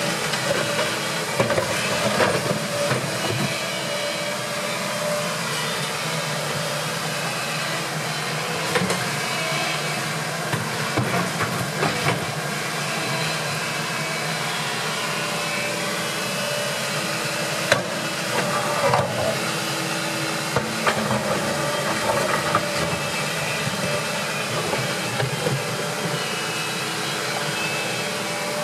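Hitachi compact excavator working: its diesel engine runs steadily with a shifting hydraulic whine as the boom and bucket move, and short knocks from the bucket and linkage come now and then.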